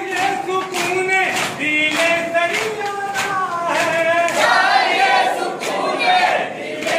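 A group of boys and men chanting a Muharram nauha in chorus, with rhythmic matam strikes, hands beating chests, about twice a second.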